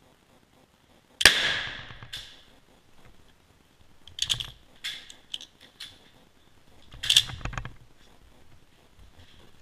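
One shot from a 1939 Swiss K31 straight-pull rifle in 7.5x55 Swiss (174 gr PPU) about a second in, sharp and loud with a fading echo. Then the bolt is worked with metallic clicks and clacks around four to five seconds in, and a louder clatter of several quick metal hits about seven seconds in.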